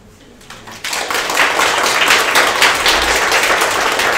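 Audience applause breaking out about a second in, many people clapping together.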